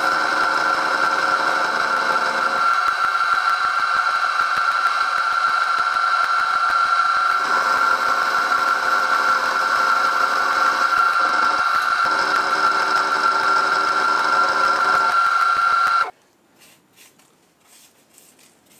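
Milling machine with an end mill cutting a mild steel block: a loud steady high whine with cutting noise, which cuts off suddenly about sixteen seconds in, leaving only faint clicks.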